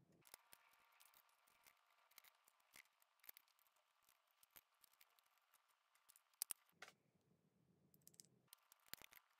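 Faint, scattered clicks and taps from small plastic parts being handled: push-button switches and a clear plastic box. The sharpest click comes about six and a half seconds in.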